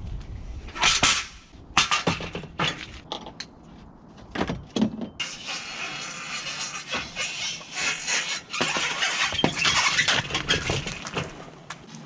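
Metal clanks, knocks and scraping of a van being unloaded: a metal loading ramp handled and set down, and a dirt bike rolled out. The clatter is irregular and grows denser and steadier about five seconds in. No engine is running.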